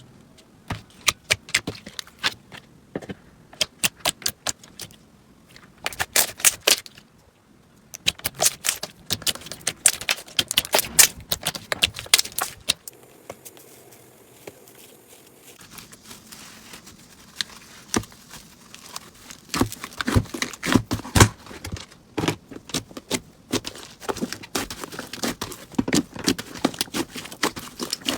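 Slime being squeezed and pressed by hand, giving dense runs of crackling clicks in bursts, with a quieter stretch about halfway through.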